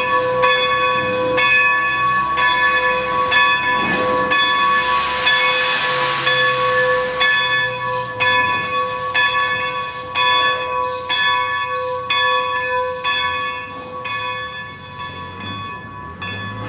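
Steam locomotive's bell ringing steadily, about one stroke a second, with a burst of steam hissing about four to seven seconds in.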